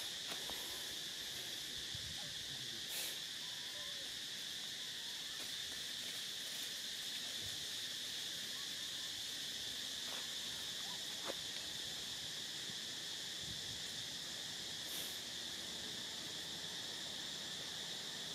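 Steady, high-pitched drone of an insect chorus, unbroken throughout, with a few faint short chirps and clicks here and there.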